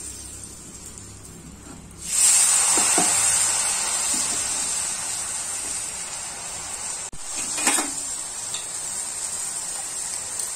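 Hot cooking oil sizzling as a batter-dipped rose cookie mould is lowered into it. The sizzle starts abruptly about two seconds in at its loudest, then carries on steadily while the egg rose cookie fries. There is a brief louder crackle a little past halfway.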